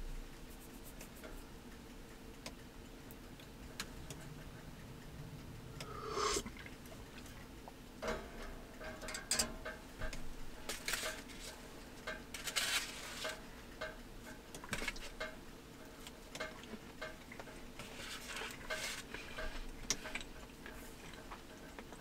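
Quiet eating sounds: chopsticks clicking and tapping against a small pot and plate, with chewing, over a faint steady hum. The taps come sparsely at first and more often from about six seconds in.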